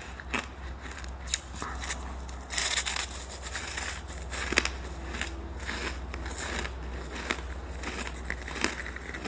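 Packed shaved ice being bitten and chewed close up: a run of crisp crunches, with a dense burst of crunching about two and a half seconds in.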